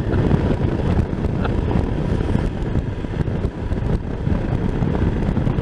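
Motorcycle riding on the road, its engine and road noise under heavy wind buffeting on the microphone.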